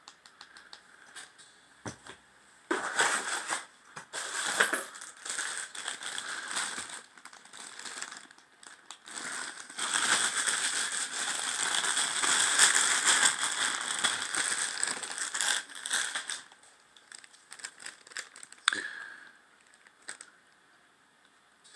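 Clear plastic bag crinkling and rustling as a hand microphone is unwrapped from it, in irregular spells, loudest and longest in the middle. A sharp click near the end.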